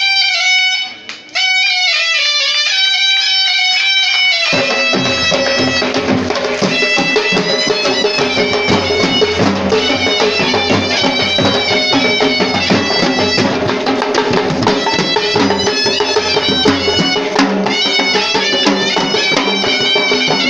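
Traditional drum music: a high, reedy wind instrument plays a melody alone, then drums come in about four and a half seconds in and play along with it at full volume.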